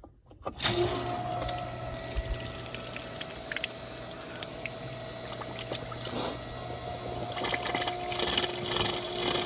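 Shallow well-point pump running and pushing water out through a freshly opened valve, a steady splashing rush over a constant motor hum, starting suddenly about half a second in. The pump is drawing water and has not lost prime after the check valve replacement.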